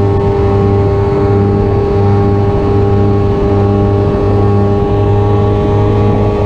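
Suzuki race motorcycle's engine held wide open at high revs in top gear, heard from a camera mounted on the bike, its pitch steady while speed climbs from about 145 to 149 mph, with wind rushing over the bike.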